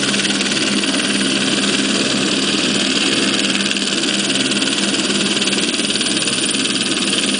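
Single-engine turbine helicopter, an AS350 Squirrel, running on the ground with its main rotor turning: a steady turbine whine and rotor noise over a low hum, holding level with no rise or fall.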